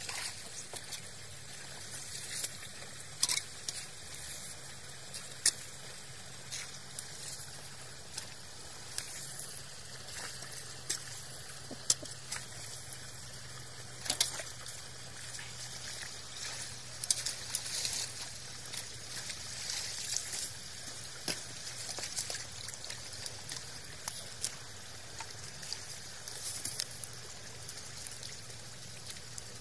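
Shallow muddy water splashing and trickling at the mouth of a clogged concrete culvert pipe, with frequent irregular small splashes and drips as hands pull debris out of the water.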